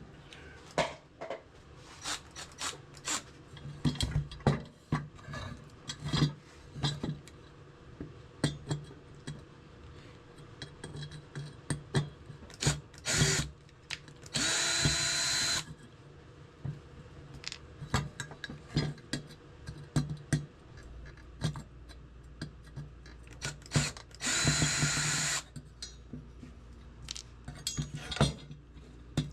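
A power drill runs in two short bursts of about a second and a half, once about halfway through and again about two-thirds of the way through. Many sharp clicks and knocks come from handling tools and parts in between.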